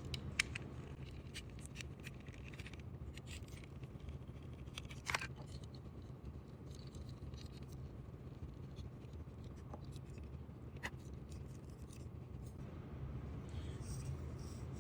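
Small clicks and scrapes of hands working on a die-cast model car as it is taken apart for a wheel swap, over a low steady hum. There are a few sharper clicks, the loudest about five seconds in and again near eleven seconds.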